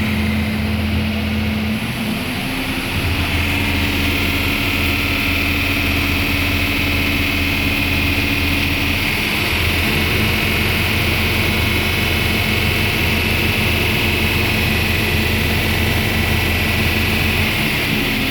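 Gildemeister CTX 600 CNC lathe running: a steady machine hum with a hiss. One tone rises in pitch about two to three seconds in and drops out about nine seconds in.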